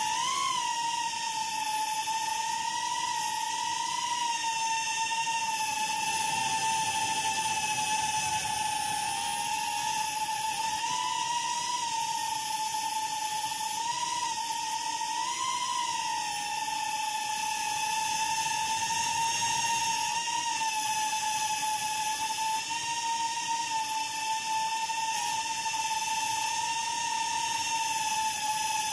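Small quadcopter drone's electric motors and propellers whining steadily, the pitch rising briefly with the throttle a few times, once near the start and several times around the middle.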